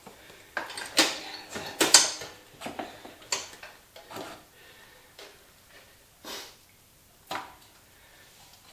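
Irregular clanks and knocks of tools and parts being handled while working on a dirt bike's rear wheel, about ten in all, the loudest in the first two seconds and growing sparser after.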